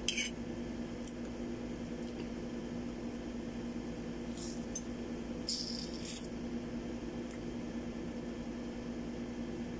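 Soft, wet mouth sounds of someone eating ripe mango slices, a few brief smacks and slurps around the middle, over a steady low electrical hum.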